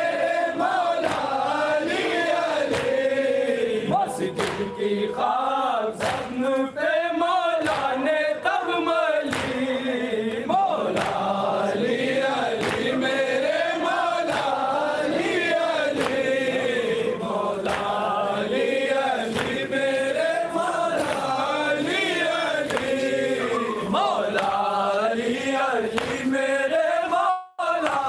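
A group of men chanting a nauha, a Shia mourning lament, together in a wavering melodic line, with short sharp slaps scattered through it. The sound cuts out briefly near the end.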